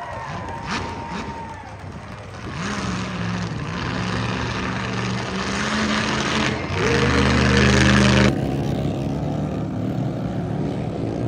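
A large vehicle engine revs up about two and a half seconds in, holds, then climbs higher and loudest before dropping off sharply at about eight seconds, leaving a lower, steady running sound.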